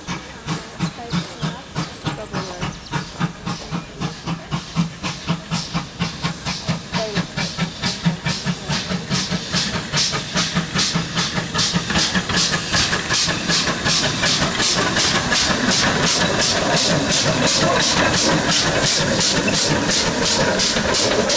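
GWR 57xx pannier tank steam locomotive chuffing as it gets under way, its exhaust beats quickening steadily and growing louder until they run almost together as it comes close.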